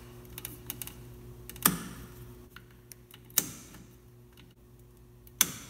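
Hand wire cutters snipping through the three-phase motor's black supply wires: three sharp snaps about two seconds apart, with small clicks of the tool between them, over a low steady hum.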